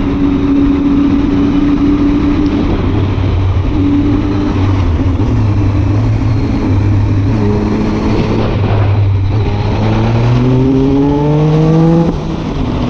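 Triumph motorcycle engine pulling along at road speed, with wind rush over it. The engine note holds steady, dips briefly about nine seconds in, then climbs as the bike accelerates and drops suddenly near the end as it shifts up a gear.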